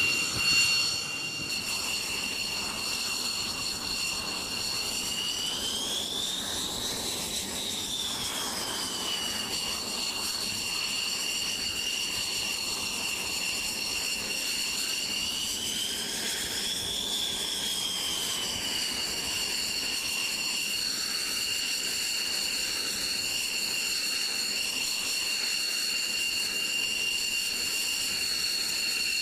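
The X-47B's Pratt & Whitney F100 turbofan running at low power on deck: a steady high jet whine over a rushing noise, swelling up in pitch and back down twice, about 7 and 17 seconds in, as the throttle is briefly advanced.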